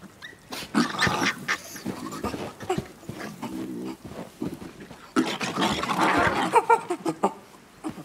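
Japanese macaques (snow monkeys) calling. There are two bouts of loud, harsh calls, one about a second in and another from about five seconds in, with a short lower-pitched call between them.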